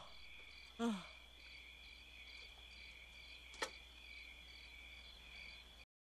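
Night-time cartoon soundtrack of crickets chirping steadily, with a higher chirp pulsing about twice a second. About a second in there is a short falling sigh from the cartoon toaster as it finishes yawning, and a sharp click comes near the middle. The sound cuts off abruptly just before the end.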